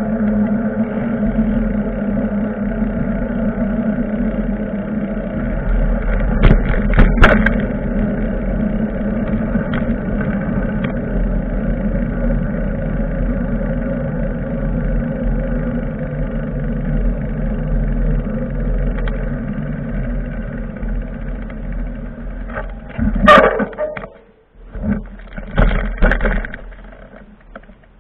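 Steady road and wind noise from a ride on a bicycle, with a few sharp knocks about seven seconds in. From about twenty-three seconds in come louder uneven bursts, and then the noise drops away at the end.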